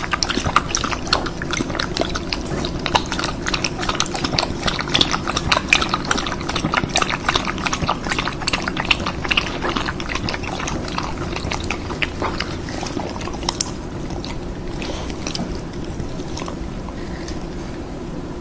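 Samoyed lapping liquid from a glass with its tongue: quick wet laps in a dense run that thins out and mostly stops about 13 seconds in. A steady low hum runs underneath.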